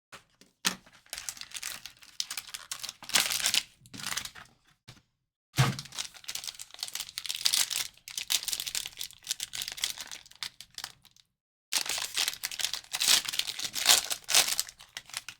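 Plastic wrapping and packaging of a trading card box being torn open and crumpled, in three long spells of crinkling and tearing, with a thump a little over five seconds in.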